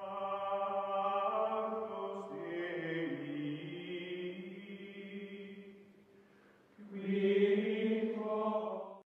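Choir-like chanting voices holding long sustained notes, changing pitch a few seconds in, then fading. A louder held chord returns about seven seconds in and cuts off suddenly near the end.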